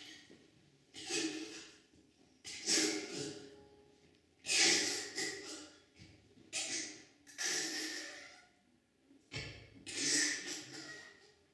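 A woman's breath sounds performed into a handheld microphone: a series of about seven forceful, hissing exhalations and gasps, each under a second or so long, with short pauses between them.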